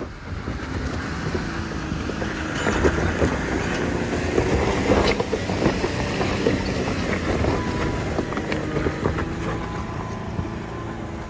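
Jeep climbing a rocky off-road trail: the engine runs under load while the tyres crunch and knock over loose rock and gravel.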